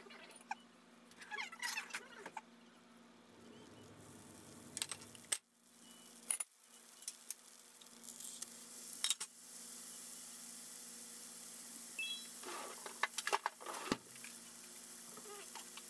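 Butter sizzling in a nonstick frying pan, with the sizzle growing fuller about two-thirds of the way in once a large hamburger patty is frying in it. Scattered clicks and scrapes come from a metal spatula against the pan.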